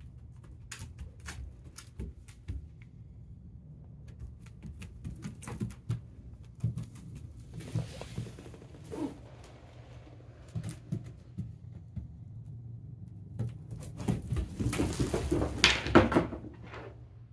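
Light clicks, taps and scuffles of a puppy moving about on tatami and floor mats, its leash dragging, with a louder spell of scuffling and thuds near the end.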